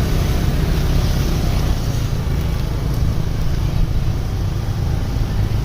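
Steady low rumble of road traffic, with no horn sounding.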